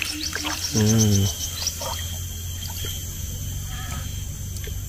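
Light ticks and drips of water as a fishing handline is drawn in by hand through the water, with a brief hum of a man's voice about a second in, over a steady low hum.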